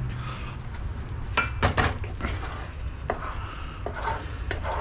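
Metal kitchen utensils and cookware knocking and clinking: a few scattered sharp knocks and clinks, the loudest cluster about one and a half to two seconds in.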